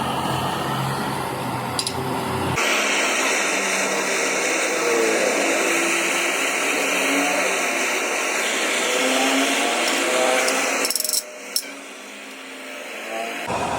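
A handheld power tool runs steadily with a high, even whirr for about eight seconds, then stops abruptly, followed by a couple of sharp clicks.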